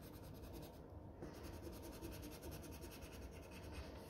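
Faint scratching of a coloured pencil shading on paper, with a short break about a second in.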